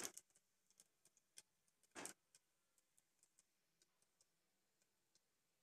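Whole spices faintly popping in hot oil: sparse small ticks and crackles, with one louder sizzling pop about two seconds in.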